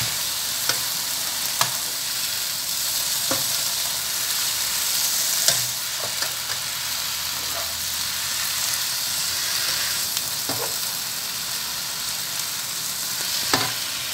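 Emperor vegetable (ti wang cai) greens and mushrooms sizzling steadily as they are stir-fried in a wok, tossed with a spatula that makes a few short clicks against the pan.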